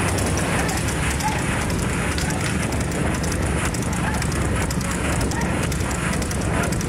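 Steady rushing wind and road noise from moving at speed alongside a water-buffalo racing cart on asphalt, with a fast, irregular crackle running through it.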